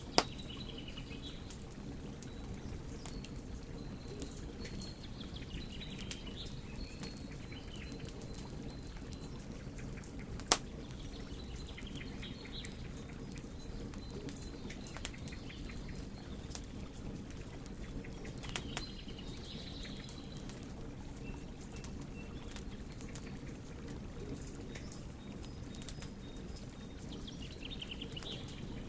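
Wood fire burning with a steady low rumble and scattered small crackles, broken by two sharp loud pops, one at the very start and one about ten seconds in. Birds chirp faintly now and then in the background.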